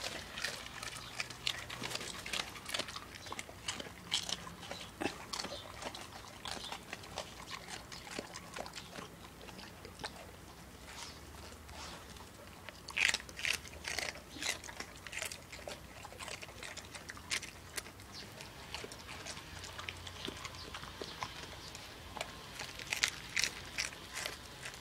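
A Staffordshire bull terrier crunching and chewing raw red cabbage, in irregular bursts of crisp bites, busiest about halfway through and again near the end.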